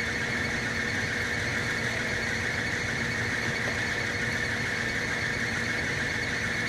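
Steady hiss with a bright, high-pitched edge and a low electrical hum beneath it, unchanging throughout: background noise of the recording or sound system, with no speech.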